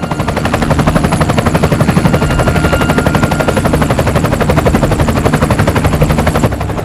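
Helicopter overhead, its rotor blades making a loud, rapid, even chopping, with a faint high whine above it. The chopping gives way to a different sound near the end.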